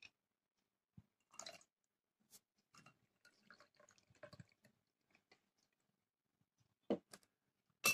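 Faint sounds of liquid being poured into a drinking glass and stirred with a metal spoon, with a few light clinks and a sharper clink about seven seconds in.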